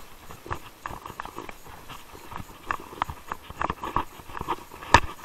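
Mountain bike rattling over a bumpy dirt trail: irregular knocks and clicks from the bike as it runs over the rough ground, with one sharp, louder knock about five seconds in.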